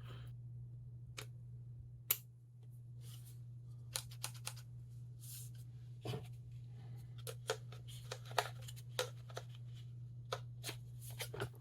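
Faint scattered clicks and taps from a cordless electric ratchet being handled, over a steady low hum.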